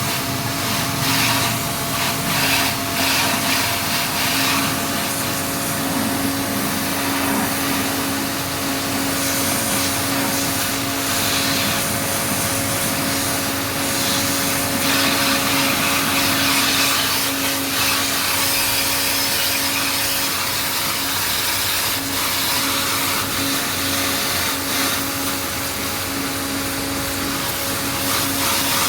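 Electric pressure washer running steadily: a motor hum under a constant hiss of the water spray.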